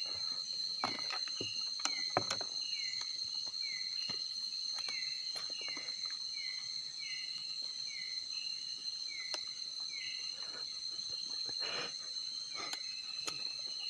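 Night insects: a steady, high-pitched trill that does not let up, with short falling chirps repeating about twice a second over it. A few faint clicks and knocks of handling sound through.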